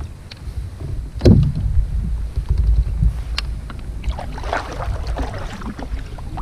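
Wind rumbling on the microphone of a camera mounted on a plastic fishing kayak, with a sharp knock about a second in and a small click later. Near the end comes a couple of seconds of irregular scratchy noise.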